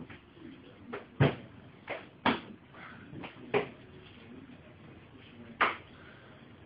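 A series of sharp knocks and clunks at irregular spacing, about seven in all, four of them loud.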